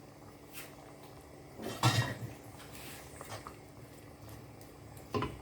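Kitchenware clattering, a utensil knocking against a cooking pot: a loud clatter about two seconds in, a few small clicks, and a short knock near the end.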